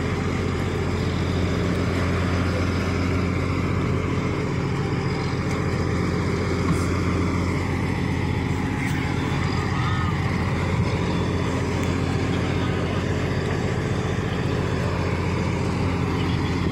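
A boat engine running steadily under way, a constant low drone, over a hiss of wind and water.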